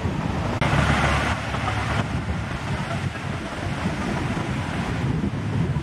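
Wind buffeting the microphone over small waves washing onto a sandy beach, a steady low rumble with surf hiss. It drops out for an instant about half a second in, then comes back louder.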